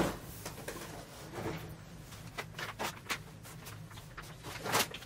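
Groceries being unpacked from a cardboard box and put into a refrigerator: a sharp knock at the start, then scattered clicks and light knocks of items being handled, with a louder knock near the end.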